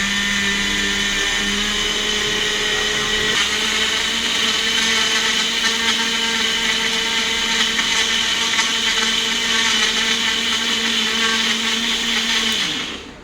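Hotstarr Bullet mixer-grinder's motor running steadily under load with its wet blade, blending apple pieces into juice, with a loud whine that rises slightly in pitch about three seconds in. Near the end it is switched off and winds down to a stop.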